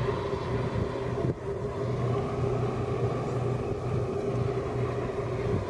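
Steady low mechanical drone, an engine or machine running at a constant speed, over a light wash of outdoor noise. It dips briefly about a second in.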